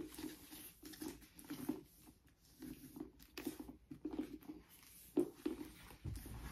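Faint rustling and small irregular knocks as a Coach Bandit leather handbag and its strap are handled and re-slung from the shoulder to crossbody, with clothing rustling against the bag.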